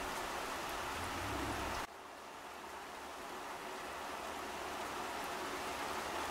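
Steady rain falling on garden plants, an even hiss of drops. About two seconds in the sound drops abruptly, then slowly swells back up.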